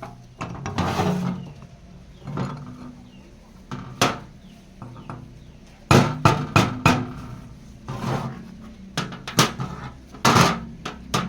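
Metal being knocked and handled: irregular sharp clanks, with a quick run of four strikes about six seconds in, and short scraping sounds between them.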